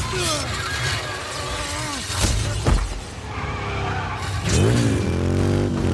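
Motorcycle crash sound effects: the bike scraping along the road on its side, with engines revving, their pitch falling and then rising again. Two sharp impacts come about two and a half seconds in.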